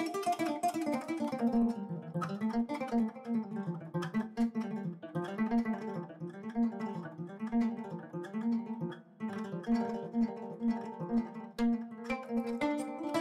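Background music: a plucked guitar playing quick notes over a repeating melody.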